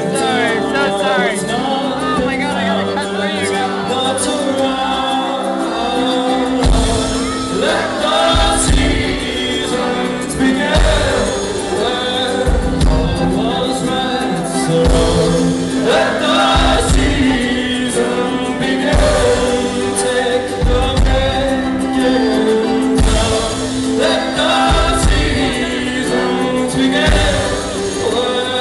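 Live folk-brass band: ukuleles, violin, trumpet, low brass and accordion, with singing. A low regular beat comes in about seven seconds in.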